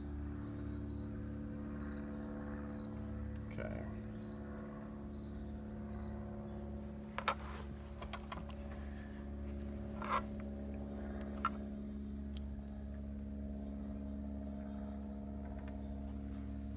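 Steady high-pitched chirring of an insect chorus in summer grass, with three short sharp clicks about seven, ten and eleven and a half seconds in.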